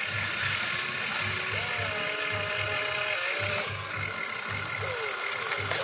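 Radio-controlled excavator's small electric motors and gearing whirring, the whine rising and falling in pitch as the boom lifts and the cab swings. Under it runs a low pulse about four times a second and a steady high hiss.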